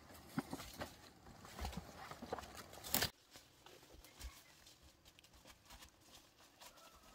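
Rustling of dry leaves and brush with scattered crunching footsteps as a person clambers out of a rock crevice, with a louder crunch about three seconds in. The sound then drops to a quieter stretch of occasional light footsteps on leaf litter.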